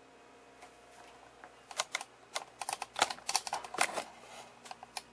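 Irregular clicks and knocks of handling noise as the camera is moved about, starting about a second and a half in, thickest in the middle and thinning out near the end.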